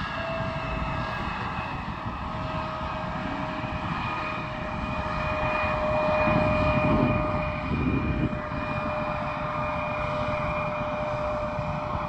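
Turbofan engines of an Embraer regional jet rolling along the runway, giving a steady whine over a low rumble. The rumble swells about halfway through.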